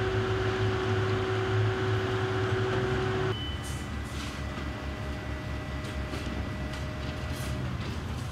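Steady low rumble of motor vehicles with a faint steady hum; the sound changes abruptly about three seconds in.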